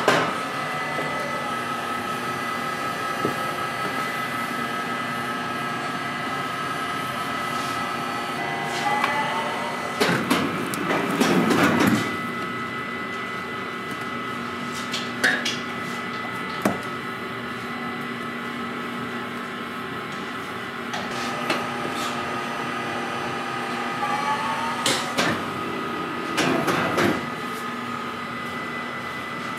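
Baumkuchen baking machine running with a steady mechanical hum from its motor and fans, a few constant tones riding on it. Sharp knocks and clatter of the roller and batter tray being handled come in two bouts, about ten seconds in and again near the end, with a few single clicks between.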